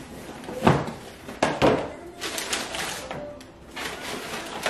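Cardboard sneaker box being handled and opened: a few knocks and thumps in the first two seconds as the lid comes off, then tissue paper rustling and crinkling inside the box.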